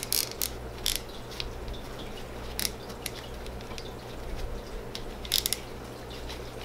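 Paper towel crinkling and rubbing as a spinning reel's drag end cap is wiped clean of grease, heard as a string of short, irregular crackles.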